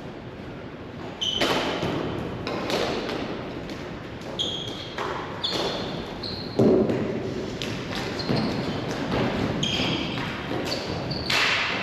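Ball hockey play: an irregular run of sharp knocks and bangs from sticks, ball and boards, the loudest about a second in, midway and near the end, with short high squeaks between them.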